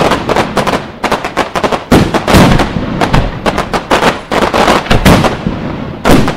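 Fireworks display: a dense barrage of loud bangs, several a second, with the heaviest booms near the start, about halfway and near the end.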